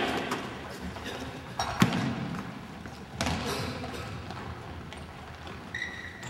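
Futsal ball kicked and thudding on a wooden sports-hall floor: a few sharp knocks that echo through the hall, the loudest a pair about two seconds in and another a second later.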